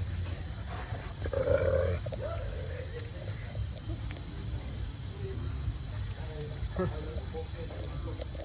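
An animal gives a short, loud, low-pitched call about a second in. A steady low rumble and a steady high-pitched hum run underneath it.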